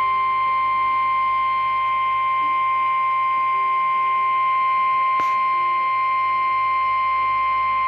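Emergency weather alert tone broadcast over the radio: the NOAA Weather Radio 1050 Hz warning alarm, one loud, steady, high single tone that switches on abruptly and holds unbroken. It signals that a warning, here a severe thunderstorm warning, is about to be read.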